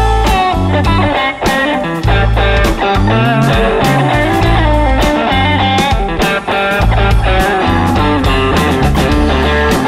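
Blues band playing an instrumental break: an electric guitar lead with bent notes over bass guitar and a steady beat of drums and cymbals.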